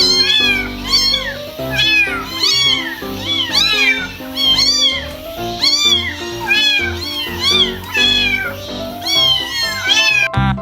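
A cat meowing over and over, about two meows a second, each rising then falling in pitch, over background music.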